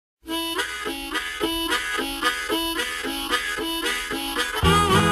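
Music: the harmonica intro of a country boogie song, repeating a short rhythmic figure about three times a second. Near the end a bent note leads into the full band coming in with bass.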